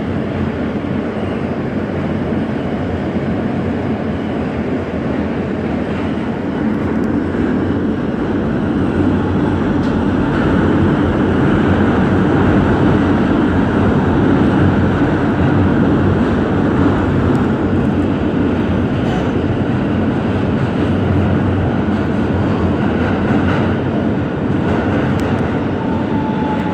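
Inside a Siemens R160B subway car running through a tunnel: a steady rumble of wheels and running noise, growing louder about ten seconds in. A faint whine comes in near the end.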